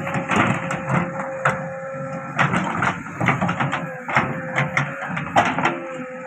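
JCB 3DX backhoe loader working: its diesel engine runs under a steady high tone, with irregular sharp clanks and knocks from the digging gear.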